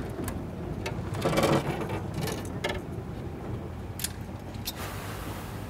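Scattered clicks, knocks and rattles from an aluminum fishing boat and the rods and tackle aboard, over a low steady hum, with a louder rattle about a second and a half in.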